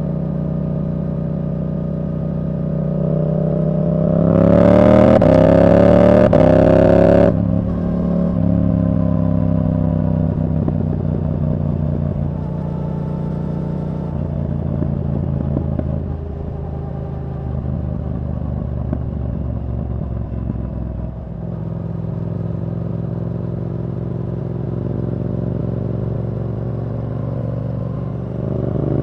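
2023 Yamaha R7's 689 cc parallel-twin running through a Yoshimura R77 exhaust with the dB killer removed, under way. About four seconds in it accelerates hard with the pitch rising, the throttle shuts abruptly about three seconds later, and the bike then cruises at a steady note before pulling up again near the end.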